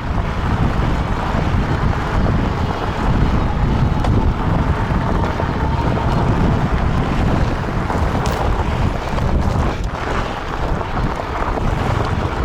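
Wind buffeting the microphone while riding an electric fat-tire bike at speed, a steady rough rumble.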